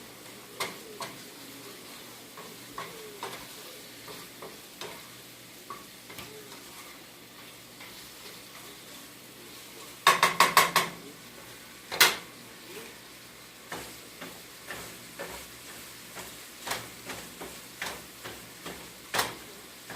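Cut-up chicken thighs sizzling as they fry in a pan, with scattered clicks from stirring. About halfway through, a quick run of about five loud knocks, then one sharp knock a second later.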